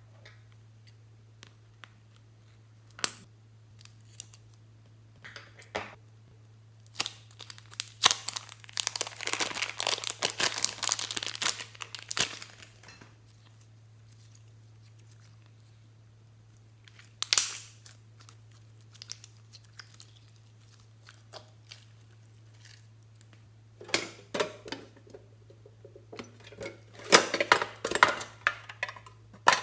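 Hands handling plastic slime packaging: crinkling, rustling and sharp clicks, in a dense stretch about eight seconds in and again near the end, when a metal tin is picked up and handled. A steady low electrical hum runs underneath.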